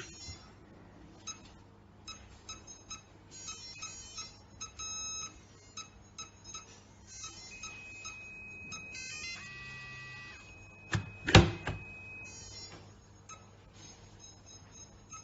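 Electronic cabinet lock beeping: a run of short electronic beeps, then a longer held tone with a brief chime partway through. A loud clunk comes about eleven seconds in.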